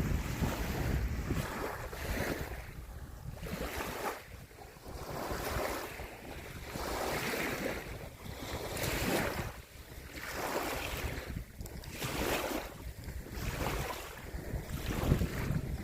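Wind buffeting the microphone with a low rumble, over small waves washing against a lakeshore, rising and falling in swells every second or two.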